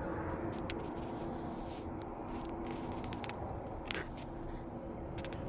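Steady background hum with a few faint clicks and ticks scattered through it.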